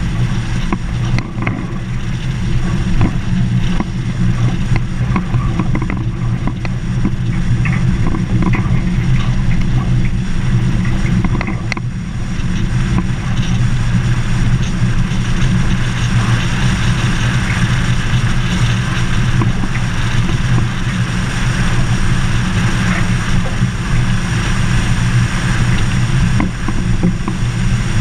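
Vehicle driving on a gravel dirt road: a steady low engine and drivetrain drone, with tyre noise and small gravel ticks over it and a hiss that grows louder about halfway through.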